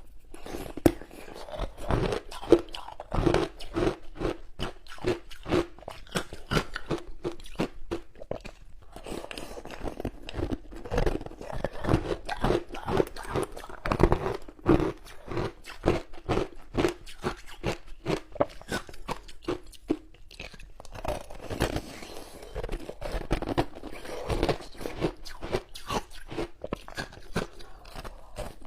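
Frozen passion-fruit ice being bitten and chewed close to the microphone: a rapid run of sharp crunches, with a couple of brief pauses.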